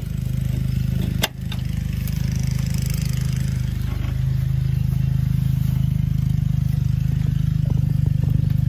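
A small engine running steadily in the background, a constant low hum. A single sharp click comes about a second in.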